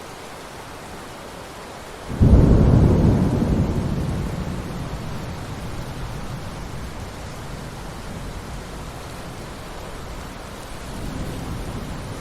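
Steady rain hissing, then a clap of thunder breaks about two seconds in and rolls away into a low rumble over several seconds, with a softer rumble swelling again near the end.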